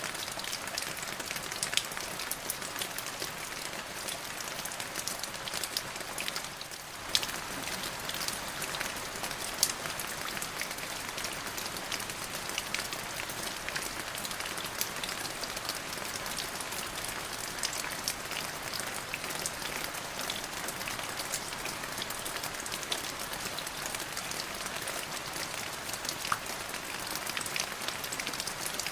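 Steady rain falling, a continuous hiss dotted with many sharp ticks of individual drops, dipping briefly a little under a quarter of the way through.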